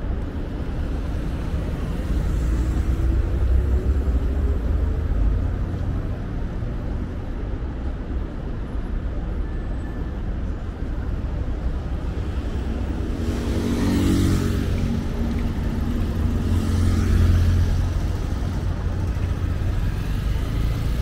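City street traffic: cars driving past over a steady low rumble. One engine rises in pitch a few seconds in, and a louder vehicle passes about two thirds of the way through.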